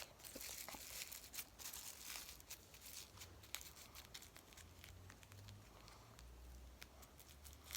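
Faint crinkling and crackling of a plastic shopping bag being stuffed as filling into a taped paper squishy. The crackles are busiest in the first few seconds and thin out after that.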